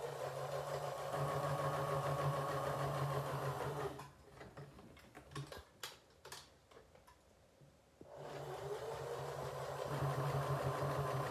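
Sewing machine stitching through fleece: it runs steadily, stops about four seconds in for a few seconds of light clicks and knocks as the presser foot is lifted and the fabric pivoted at a corner, then starts again and builds up speed.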